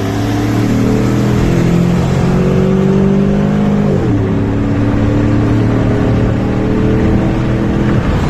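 C5 Corvette's V8 engine running steadily, its speed dropping slightly about four seconds in and then holding.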